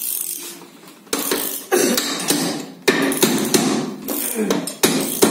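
Red-faced soft mallet striking a steel tube drift to drive a bearing into an aluminium gearbox casing and seat it: a series of blows roughly a second apart, each dying away with a short ring.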